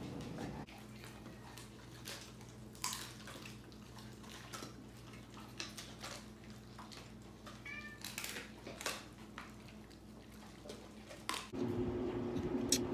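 Faint, brief high-pitched cries from a pet, with scattered small clicks and knocks over a low steady room hum.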